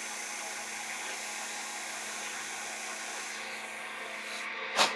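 Wood lathe running with a steady hum, a turning tool hissing lightly against the spinning chair rung's tenon; the cutting hiss fades a little after three seconds in as the tool comes off the work. A single sharp knock sounds just before the end.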